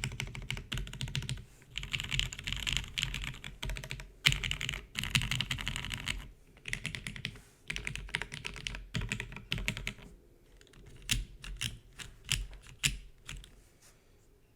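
Typing on a custom mechanical keyboard with retooled Cherry MX Black linear switches, GMK keycaps, a carbon fiber plate and an O-ring mount. Runs of rapid keystrokes are broken by short pauses, slowing to a few separate key presses near the end.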